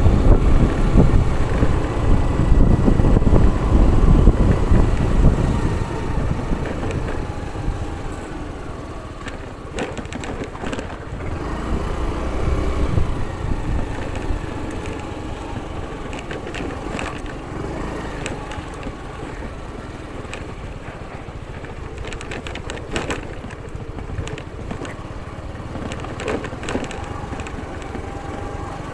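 Motorcycle riding down a loose gravel and dirt road: tyres crunching over stones with the engine running low underneath, and scattered clicks of grit. A heavy low rumble for the first several seconds, then quieter.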